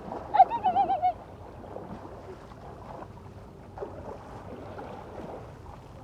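Beach ambience of surf and water washing, with a short warbling, wavering call about half a second in.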